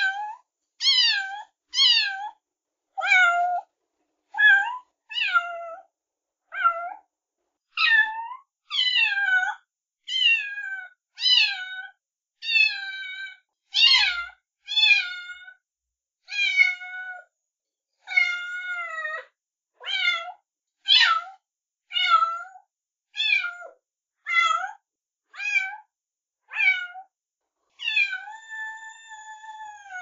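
A cat meowing over and over, short rising-and-falling meows about one a second, then one long drawn-out meow near the end.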